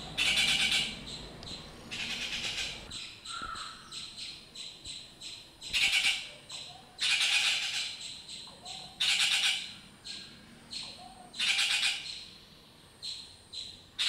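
Rufous treepies giving loud, harsh squawking calls every second or two, with quieter short chattering notes in between.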